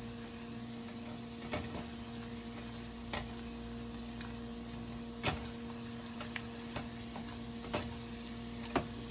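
Minced shallots sizzling gently in butter in a small saucepan as they soften, with a silicone spatula stirring and tapping sharply against the pan a few times, loudest near the end. A steady low hum runs underneath.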